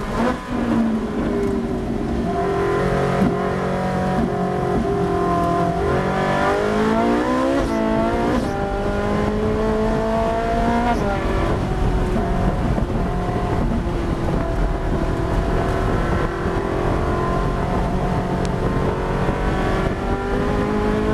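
Ferrari Challenge race car's V8 engine, heard from onboard, pulling hard through the gears: the revs climb and drop sharply at an upshift about eight and a half seconds in, then rise and ease with the corners.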